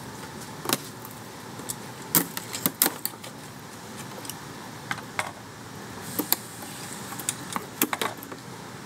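The opened battery case and its stiff insulating sheet being handled: a scatter of short, sharp clicks and clatters of hard plastic and board, the loudest about two to three seconds in and again near the end.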